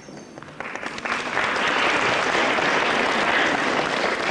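Audience applause in a concert hall. It starts about half a second in and swells within a second to steady clapping.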